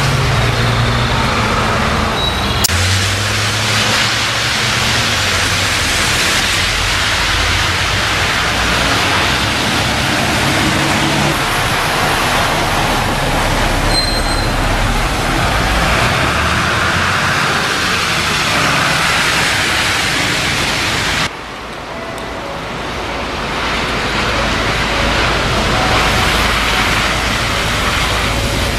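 Street traffic with a diesel city bus, a Mitsubishi Fuso U-MP218K, running as it pulls through a junction and away, its low engine note steady over a constant traffic hiss. A hard cut about three-quarters of the way in switches to a second street scene, where another bus, an Isuzu K-CQA500, approaches in the traffic.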